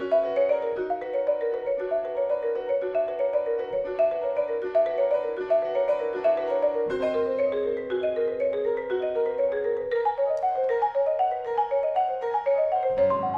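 Concert marimba played with mallets in fast, even runs of repeated notes, accompanied by piano holding lower notes underneath.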